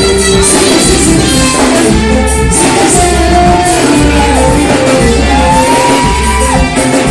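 Live worship music: a singer holding long, sliding notes over a band with a steady, pulsing bass.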